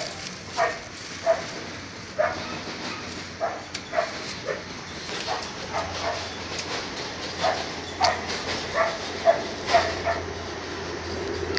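A dog barking repeatedly, about fifteen short barks at a fairly even pace.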